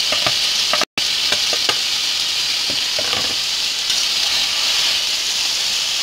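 Sliced bell peppers and onions frying in hot oil in an enamel pot, a steady sizzle with scattered light taps and clicks in the first few seconds. The sound drops out completely for a split second about a second in.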